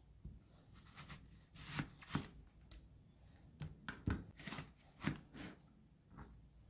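Chef's knife slicing through eggplant and then a halved onion on a cutting board, with irregular sharp knocks of the blade against the board.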